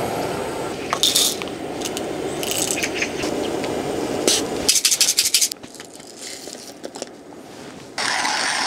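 A steady low rush from a canister gas stove burner under a kettle, with small clicks of coffee beans and a plastic jar. About five seconds in comes a quick clatter of coffee beans poured into a Comandante hand coffee grinder. Near the end a louder steady grinding noise begins.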